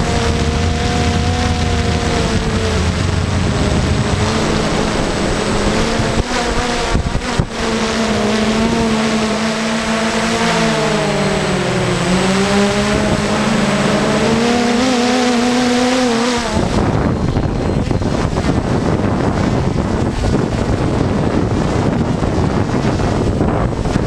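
DJI Phantom 1 quadcopter's motors and propellers whining close to the drone-mounted camera, over heavy wind rush, with the pitch wavering up and down as it manoeuvres. About sixteen seconds in the motor whine cuts off suddenly, leaving only the rushing wind noise.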